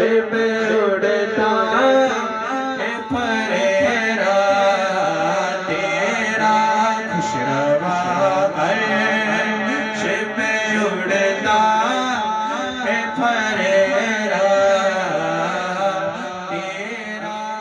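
A male voice sings a naat in a melodic, chant-like style over a steady low drone.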